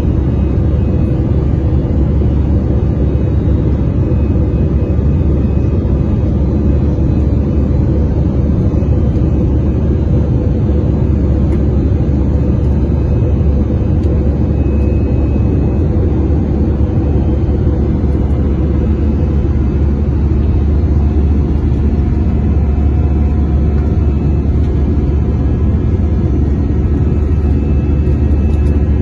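Steady low rumble of an Airbus A320's jet engines and rushing air, heard inside the passenger cabin during the climb after takeoff, with a faint steady hum over it.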